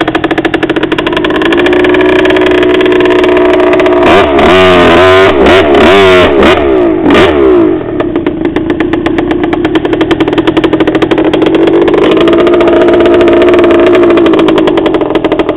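KTM 50 two-stroke mini dirt bike engine running steadily under the rider, with a burst of quick throttle blips rising and falling in pitch about four to seven seconds in, then settling back to a steady note.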